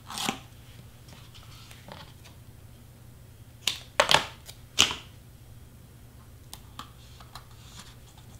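Scissors snipping foam tape, a cluster of four sharp snips about halfway through, with light handling of tape and cardstock around them.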